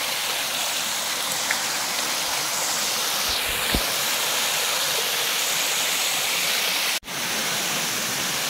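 Overflowing lake water pouring over a masonry spillway weir, a steady rushing of falling water. The sound cuts out for an instant about seven seconds in.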